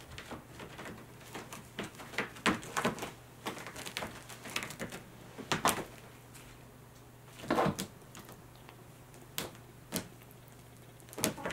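A Munchkin cat's claws scraping and catching on a carpeted homemade scratching board as it climbs and grips the edge, in irregular scratches and knocks, with several louder scrapes spread through.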